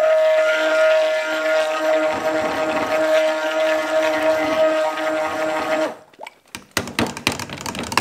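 Stick (immersion) blender running in a pitcher of raw soap batter, a steady motor whine, blending the white batter. It cuts off suddenly about six seconds in, followed by a few quick clicks and knocks.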